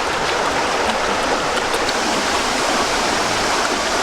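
Steady rush of flowing stream water, with faint scattered ticks over it.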